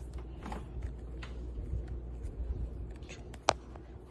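Quiet handling noises, faint taps and rustles, with one sharp click about three and a half seconds in, over a low steady hum.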